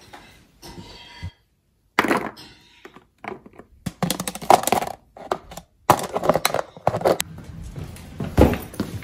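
Handling noises from packing a plastic lunch box: a run of knocks, clicks and clatter. The sound drops out completely for a moment about a second in.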